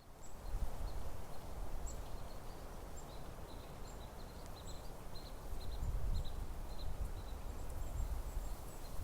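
Outdoor ambience: wind rumbling on the microphone, with many short, faint, high chirps from small birds scattered throughout.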